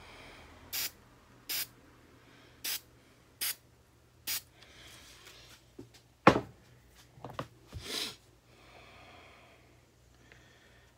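Aerosol can sprayed in five short bursts, about one a second. About six seconds in there is a loud knock, then two clicks and one more short spray burst.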